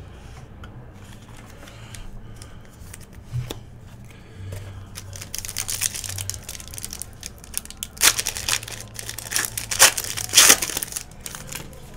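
Trading-card pack wrappers crinkling and tearing as packs are ripped open. Faint at first, growing busier from about halfway, with the loudest rips near the end.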